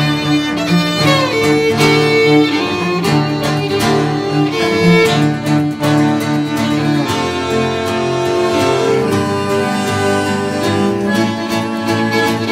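Instrumental background music with long held notes that change every second or two.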